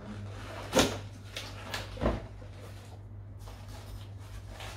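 Cardboard packaging being handled and opened: a sharp knock about a second in and another about two seconds in, with lighter taps and rustles between, over a steady low hum.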